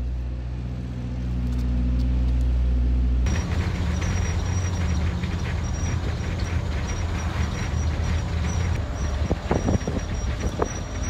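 For the first few seconds, a steady deep engine drone from road-construction machinery working at the roadside. Then comes the inside of a moving school bus with its windows open: engine rumble and wind rushing in, with a few knocks and rattles near the end.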